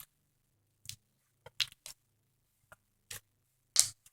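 Thick, soft slime being squeezed and worked by hand, giving a string of short squishy clicks and pops, the loudest near the end.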